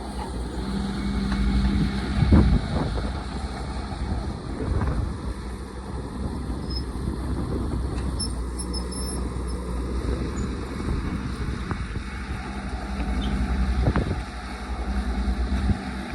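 Caterpillar excavator's diesel engine running steadily, with a few knocks and clanks from the machine working. The loudest knock comes about two and a half seconds in.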